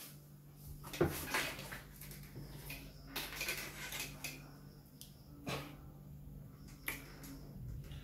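Handling noises: a few light knocks and clatters with rustling as a smartphone is picked up and handled, the loudest knock about a second in, over a low steady hum.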